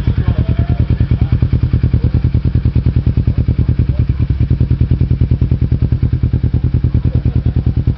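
Motorcycle engine idling through an aftermarket Roncar Coyote TRS carbon-fibre slip-on muffler: a steady, even exhaust beat with no revving.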